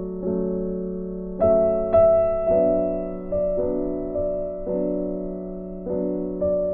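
Background piano music, with single notes and chords struck about once a second and left to ring.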